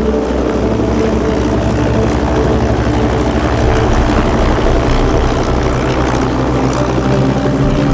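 Background music carrying on under a dense, steady mechanical rumble, like an engine or rotor.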